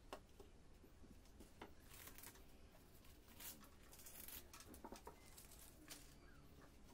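Faint handling of masking tape on a bass guitar neck: soft tearing and crinkling of tape with a few light clicks, barely above silence.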